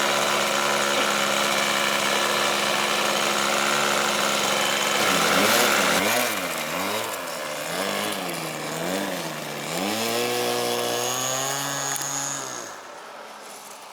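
Small model-airplane engine running at high speed with a steady buzzing whine, then its pitch swings up and down about once a second as the throttle is worked, drops to a low idle about ten seconds in, and stops about a second before the end.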